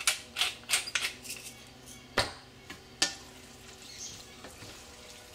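Pepper mill grinding black pepper with a few quick clicking turns, then two sharp knocks about two and three seconds in, followed by a wooden spoon stirring thick white sauce and vegetables in a stainless steel saucepan.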